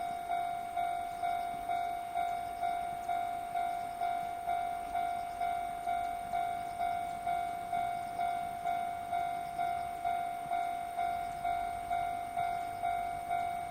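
Japanese railway level-crossing warning bell sounding its electronic clang, one pitched tone repeating evenly a little under twice a second.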